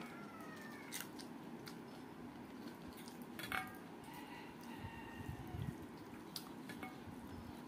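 Fingers mixing rice on a stainless steel plate: scattered light clinks and taps against the metal. The sharpest clink comes about halfway through.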